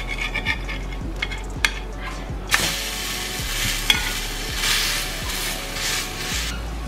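Spinach-semolina chilla frying on a nonstick tawa. A metal spatula scrapes and taps beneath it, then after the chilla is flipped about two and a half seconds in, it sizzles steadily, stopping shortly before the end.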